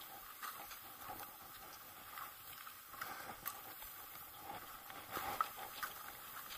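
Skis sliding through snow during a downhill run, with soft irregular swishes and crunches and a sharper tap about five seconds in.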